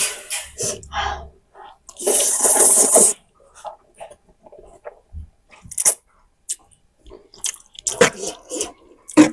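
Close-miked eating of spicy noodles by hand: wet chewing and lip smacking in short bursts, with one loud slurp lasting about a second, starting about two seconds in.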